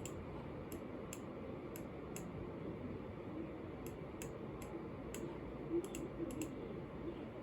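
Computer keyboard keys clicking: about a dozen short, irregular taps in two bunches, over a steady low background hiss.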